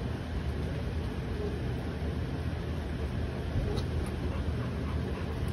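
Steady low outdoor rumble with no distinct event, and one faint short tick about four seconds in.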